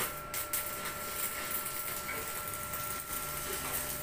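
Electric arc welding on steel reinforcing mesh: a steady crackling hiss from the welding arc.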